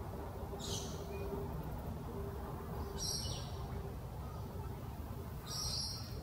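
Birds calling: three short, high calls about two and a half seconds apart over a steady low background noise.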